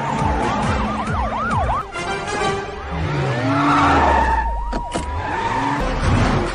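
Film car-chase sound mix: police sirens wailing in quick up-and-down cycles over car engines revving, with a sharp hit about five seconds in.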